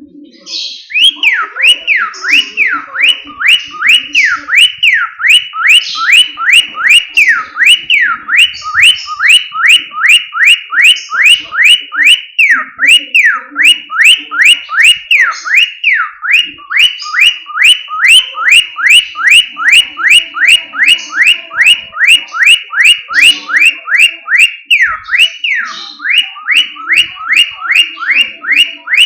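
Pet bird whistling an imitation of a car alarm: a long run of quick rising-and-falling whistled sweeps, about two or three a second, with a few short breaks.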